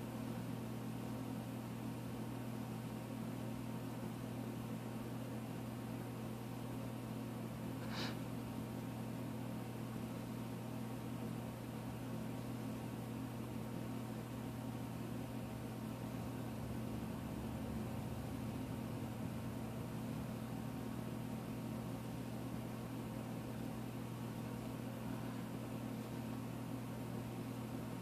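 Steady low hum over a faint hiss (room tone), with one short click about eight seconds in.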